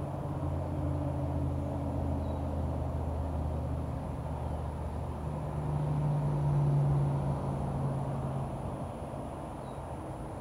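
A vehicle engine running with a low hum, growing louder about six seconds in and fading again after about eight seconds.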